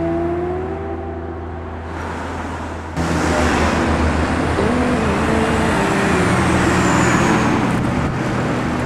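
Road traffic on a town street: cars and a box truck driving past, a steady rush of engine and tyre noise that starts abruptly about three seconds in.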